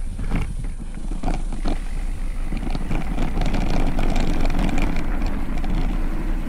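Specialized Stumpjumper Evo mountain bike rolling over a dirt trail, picked up by a camera clamped to its handlebar: a steady rumble of tyres and frame, with a few sharp rattling knocks in the first couple of seconds and rougher, louder rumbling from about three seconds in.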